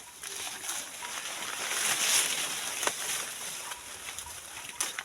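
Dry maize leaves and stalks rustling, with a few light crackles, swelling about two seconds in.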